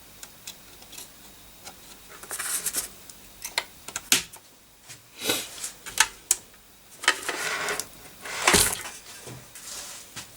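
Handling noises of hardware on a workbench: scattered sharp clicks and small knocks mixed with short rustling scrapes, the loudest scrape about two thirds of the way through.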